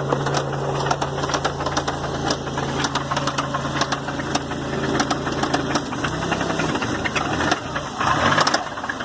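1993 Oldsmobile Cutlass Supreme's engine idling with a rapid, repeated knock. The owner can't tell where it comes from: he suspects the area around the pulleys and the power steering pulley, and wonders whether it could be the rods.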